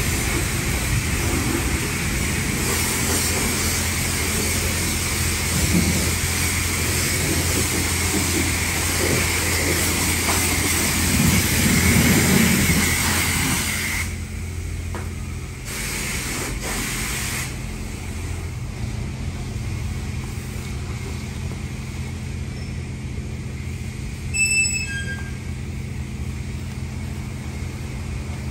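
Steady hiss over a low machine hum, which drops in level about halfway through; a brief high chirp sounds near the end.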